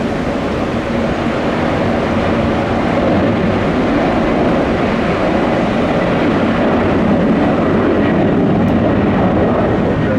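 Jet airliner engines running, a loud steady noise that grows gradually louder over the first few seconds.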